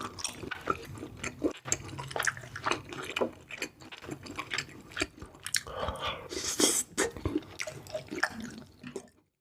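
Close-miked eating of spicy seafood: chewing and biting, with many irregular sharp wet clicks and mouth sounds. The sound cuts off abruptly just before the end.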